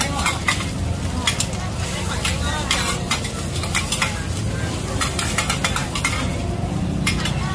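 Metal spatulas scraping and clacking on a large flat griddle pan, with irregular sharp clinks several times a second, while green-mussel omelettes (hoi tod) sizzle in hot oil.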